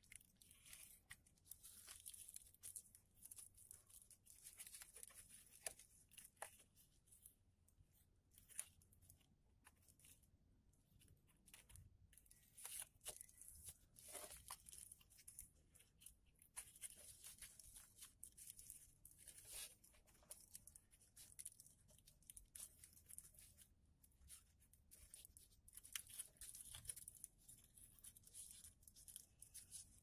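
Faint rustling and crinkling of paper being folded and creased by hand, with many small irregular clicks and scrapes.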